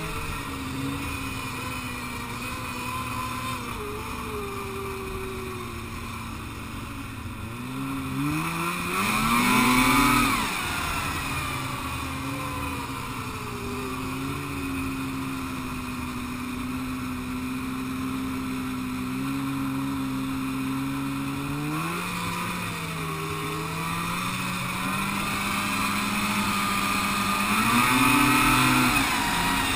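Snowmobile engine running under way, its pitch climbing and loudest as the sled speeds up about a third of the way in, then holding steady, with shorter rises in pitch later on and again near the end.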